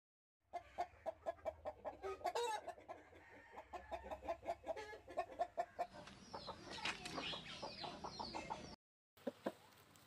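Chickens clucking in short notes, several a second. About six seconds in, after a cut, higher calls join in.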